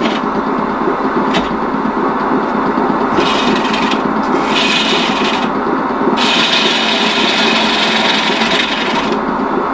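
A bowl gouge cutting a spinning wooden bowl blank on a Union Jubilee wood lathe: a continuous scraping hiss of the tool on the wood, which grows sharper in several passes, over the steady running of the lathe.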